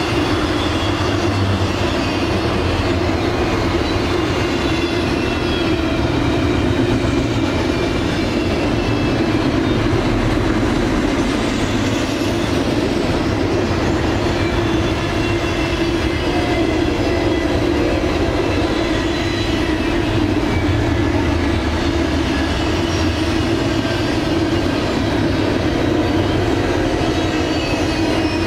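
Double-stack container cars of a freight train rolling past: a steady rumble of steel wheels on rail, with faint high wheel squeals on the curve.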